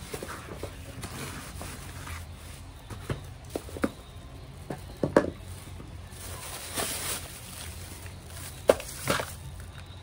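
Handling noise from a red bag being folded and smoothed by hand: soft rustling and crinkling with a few sharp knocks and taps, the loudest about five seconds in and again near the end.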